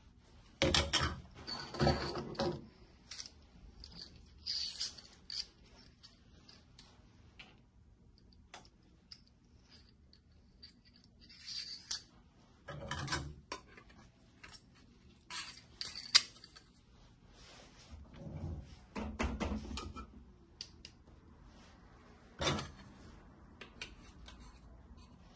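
Irregular clicks, knocks and short clunks of hard parts of a cup sealer machine being handled and fitted together. There is no steady motor sound. The louder clunks come at the start, about halfway through and near the end.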